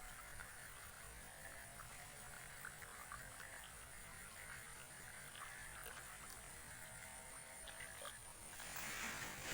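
Faint croaking of frogs.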